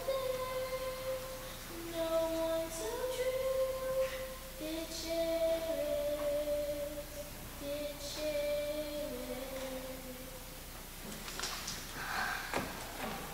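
A girl's voice singing a slow unaccompanied song in long held notes, which ends about ten seconds in. A few short knocks follow near the end.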